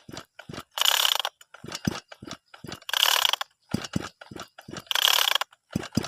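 Sumura two-stroke chainsaw's recoil starter pulled slowly three times, about two seconds apart: each pull a half-second rasping whir of the cord with ratchet clicks, and the cold engine does not fire.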